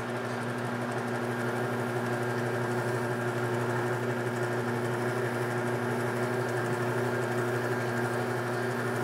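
Electric leather edge burnishing machine running with a steady motor hum as a leather strap edge, wetted with water and saddle soap, is worked against its spinning wooden burnisher.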